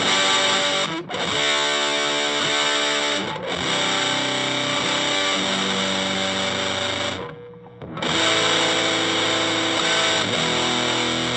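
Electric guitar through an Electro-Harmonix Big Muff fuzz pedal and an Orange Crush 35RT amplifier, playing a chord progression of heavily distorted, long-sustaining chords. The chords change every two to four seconds, with a short break about seven seconds in.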